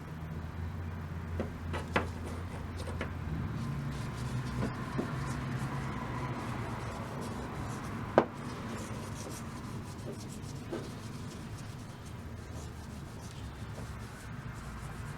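Thinned varnish being applied to a wooden hammer handle: soft rubbing strokes over the wood, with a few light knocks, the sharpest about eight seconds in, over a low steady hum.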